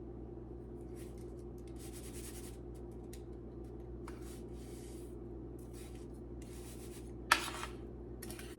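Raw chicken breast being pressed and turned in dry breading mix on a plate, with short bursts of rubbing and scraping. One sharp clink about seven seconds in is the loudest sound, over a steady low hum.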